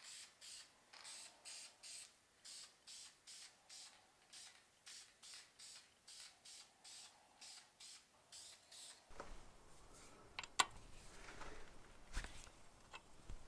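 Faint, regular hissing pulses about twice a second. Near the end come a few sharp metallic clicks as a combination wrench works a fuel-line nut on a spin-on fuel filter base.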